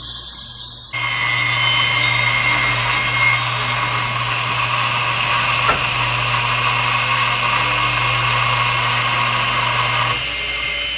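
Power saw running and cutting along a wooden board, with a steady motor hum; the cut's sound sets in about a second in and eases just after ten seconds.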